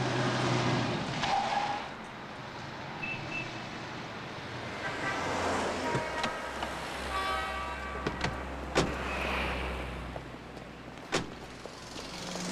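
A car engine running low and steady as the car pulls up and stops, with several sharp knocks, the loudest about nine seconds in.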